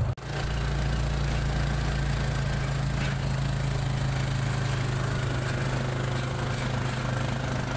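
Vehicle engine running steadily as the vehicle drives along, heard from inside it: an even low drone with road and wind noise over it. The sound drops out for an instant right at the start.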